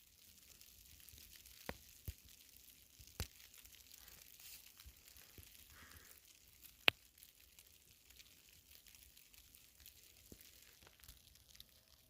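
Faint footsteps crunching in fresh snow over a soft hiss, with a few sharp clicks, the loudest about seven seconds in.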